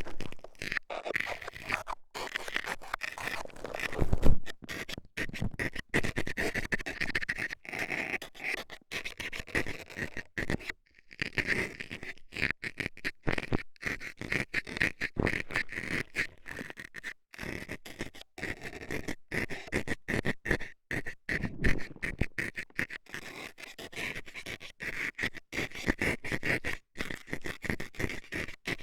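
Metal scaler scraping and scratching inside an ear microphone in quick, irregular strokes, with one louder knock about four seconds in.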